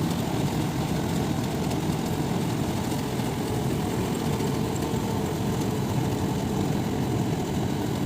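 Large paddy combine harvester's engine running steadily as the machine harvests rice.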